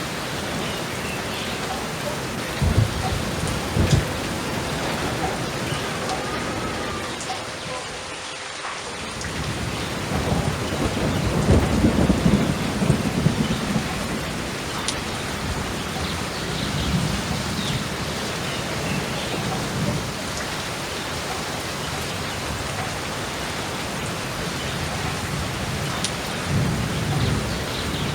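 Steady heavy rain with thunder: two sharp cracks about three and four seconds in, then a long rolling rumble, the loudest part, from about ten to fourteen seconds, and weaker rumbles later on.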